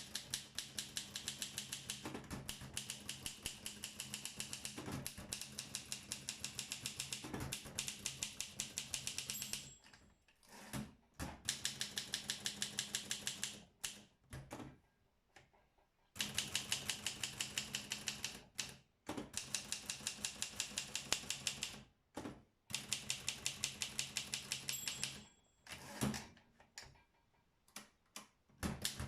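Olympia SM7 manual portable typewriter being typed on: rapid, even keystrokes at about five or six a second, in runs of several seconds with short breaks between them.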